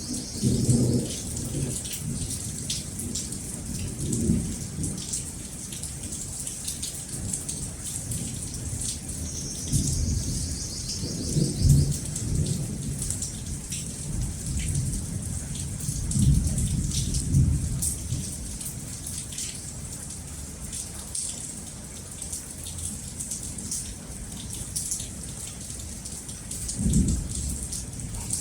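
Steady rain hissing, with rolls of thunder rumbling in several times, the strongest in the middle.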